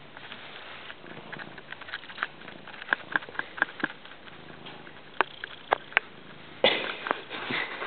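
Norwegian forest cat sniffing and pawing at the camera at close range: many quick clicks and taps, with a louder rustle about two thirds of the way in.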